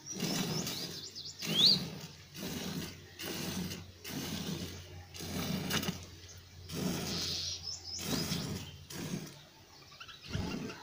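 Jets of milk squirting into a steel milk pail as a cow is milked by hand: a rhythmic hissing spray about once a second. A bird chirps over it, with a short rising whistle about a second and a half in.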